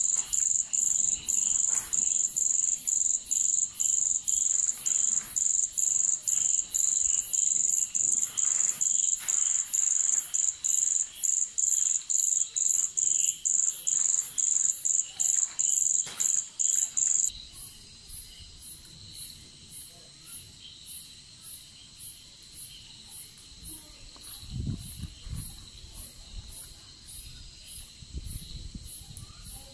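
Crickets chirping in a fast, even rhythm. The loudest, nearest chirping stops abruptly a little over halfway through, leaving fainter, higher chirping from others. A few low thumps come near the end.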